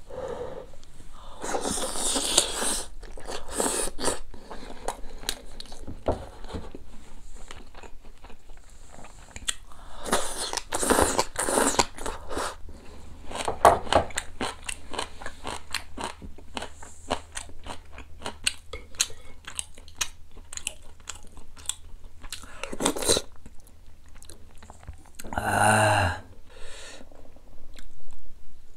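Close-miked chewing of tender boiled duck meat: many short wet clicks and smacks of the mouth, with a louder voiced sound from the eater near the end.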